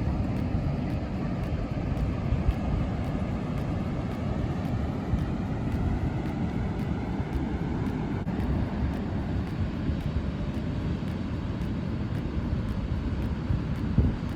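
Steady low rumble of wind buffeting the microphone, with ocean surf washing underneath.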